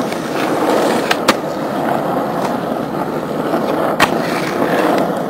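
Skateboard rolling on asphalt, a steady rumble of the wheels, with a few sharp clacks: two close together a little after a second in and the loudest about four seconds in.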